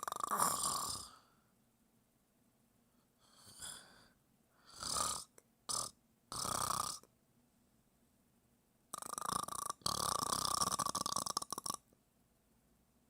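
Sleeper snoring in uneven snores: one at the start, a few shorter snores between about three and seven seconds in, then a long snore of nearly three seconds starting about nine seconds in.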